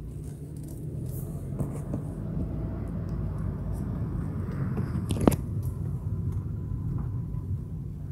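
Car driving slowly, heard from inside the cabin: a steady low engine and road rumble, with one sharp click about five seconds in.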